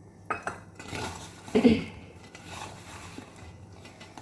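Mixing bowl knocking and clinking as flour dough is kneaded by hand in it, with a louder knock about a second and a half in.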